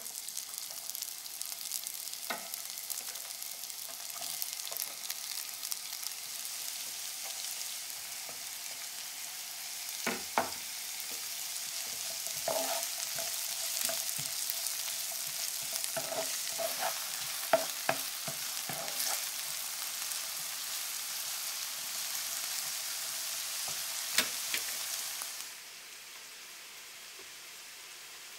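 Sliced onions sizzling in hot olive oil in a frying pan, a steady hiss broken by a few sharp taps of a utensil against the pan. The sizzling cuts off suddenly near the end.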